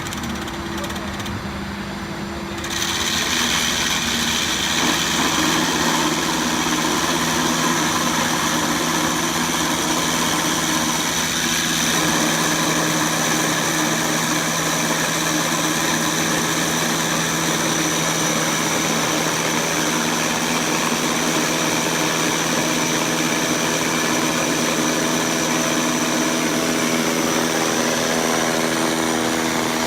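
Blastrac 335 self-propelled concrete scarifier running with a steady machine hum and whine. About three seconds in it turns louder and harsher, with a high hiss added, and then holds steady.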